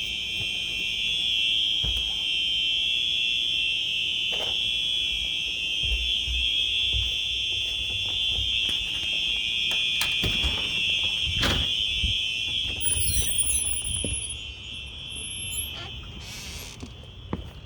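Simplex 4903-9236 fire alarm horns sounding together in one steady, high-pitched tone. The sound drops fainter about fourteen seconds in, with a couple of knocks partway through.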